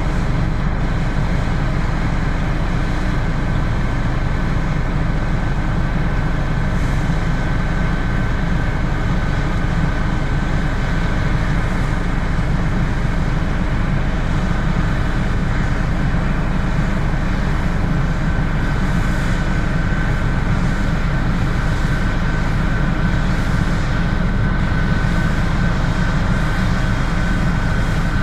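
Claas Lexion 6900 combine harvester running steadily, a constant heavy mechanical drone with a thin steady whine over it.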